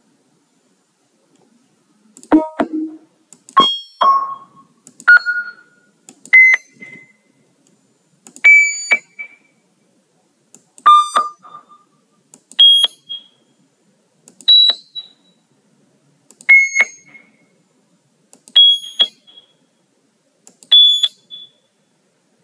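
Computer-generated sine-wave beeps from a Python/Pygame random tone generator. About eleven short pure tones play one after another, roughly one every two seconds, each at a different random pitch from low to high, and each starts and stops with a click.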